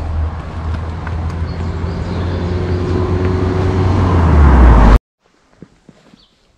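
A car on the move: engine and road noise with a heavy low rumble, growing steadily louder as it gathers speed. It cuts off suddenly about five seconds in, leaving near silence with a few faint clicks.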